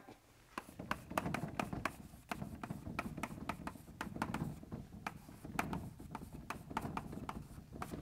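Writing by hand, heard as an irregular run of short, sharp strokes and taps, several a second.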